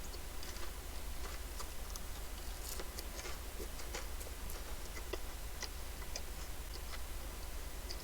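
Close-up chewing of a large mouthful of fried wedge potatoes: irregular soft clicks and wet mouth sounds, several a second, over a faint low hum.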